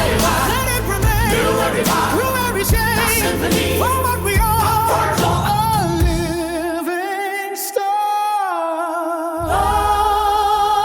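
Song music with a held, wavering vocal line over full backing. The bass drops out about seven seconds in, leaving the voice and upper parts alone, and comes back about two and a half seconds later.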